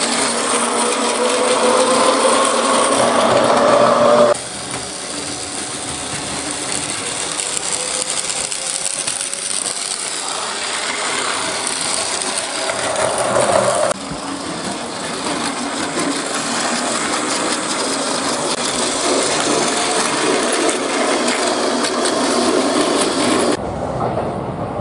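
Battery-powered Plarail toy trains running on plastic track: a steady whirring of small motors and gears, with a faint rising whine in the first clip, broken into several clips by abrupt cuts.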